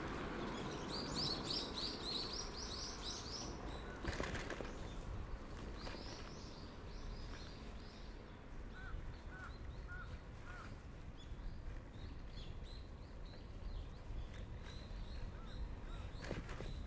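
Birds chirping in quick runs of high notes, with a second call of short repeated notes about halfway through, over a steady low rumble. Two sharp knocks, one about four seconds in and one near the end.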